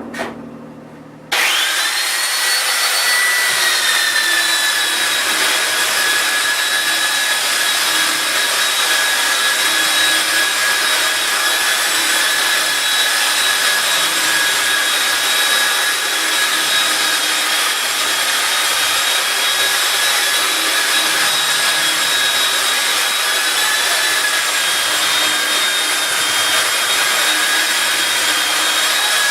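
Electric power sander switched on about a second in, its motor whine settling to a steady pitch, then running continuously with the rough hiss of sanding.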